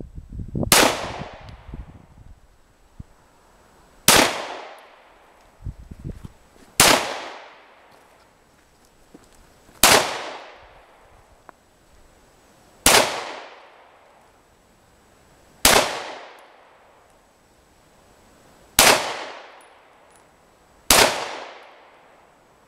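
Walther PPQ 9 mm pistol fired without a suppressor: eight single shots spaced two to three seconds apart, each followed by an echo that dies away over about a second and a half.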